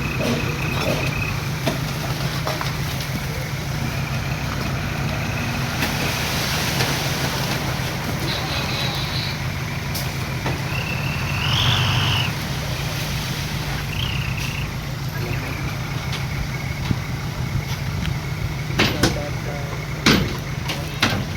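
Heavy diesel machinery running steadily with a low engine drone. A burst of air hiss comes about six seconds in, a few short high squeals follow, and there are sharp metal clanks near the end.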